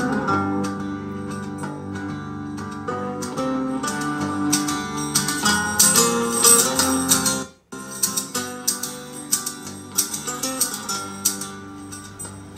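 Guitar-led music playing back from the amplifier's USB MP3 module through its speakers in a sound test. The music cuts out for a moment a little past halfway, then carries on.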